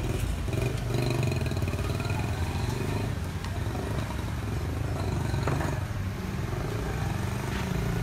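Road traffic: the engines of cars and motorcycles running as they drive slowly past, a steady low rumble.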